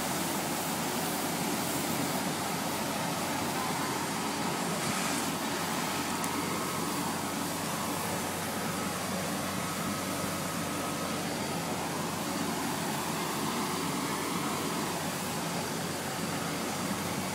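Steady drone of fire trucks' diesel engines running at pumping speed to feed the aerial ladder streams, mixed with a rushing noise, with no sudden events.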